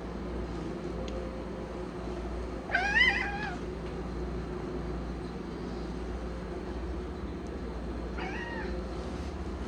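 A pet cat meowing twice: a longer, louder meow about three seconds in and a shorter, quieter one near the end, over a steady low hum.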